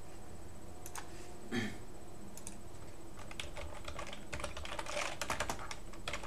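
Typing on a computer keyboard: irregular keystroke clicks, a lone one about a second in and a quick run of them from about three to five and a half seconds. One duller, softer sound comes about one and a half seconds in.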